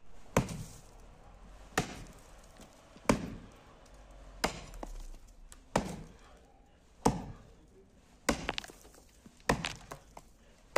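Axe chopping through birch roots in the dirt around a stump: about nine steady blows, a little over a second apart, some followed by a smaller second knock. The roots are being cut to free the stump for pulling out.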